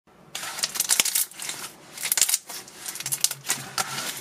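Milky, glossy slime being pressed and poked by hand: a dense run of sharp, sticky clicks and little bubble pops, starting about half a second in.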